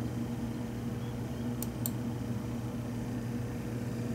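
Steady low machine hum, like running fans, with two faint clicks about one and a half seconds in.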